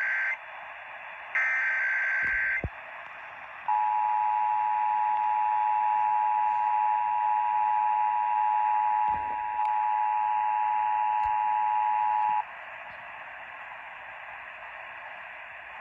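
Emergency Alert System test over AM radio: the end of one SAME digital header burst and then a second full burst of about a second, each a harsh high-pitched data screech. About four seconds in, the two-tone EAS attention signal starts and holds steady for about nine seconds, then stops, leaving AM radio hiss.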